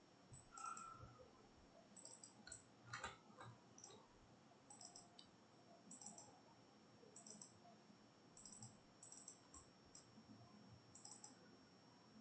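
Near silence with faint computer mouse clicks scattered throughout, many of them quick double clicks.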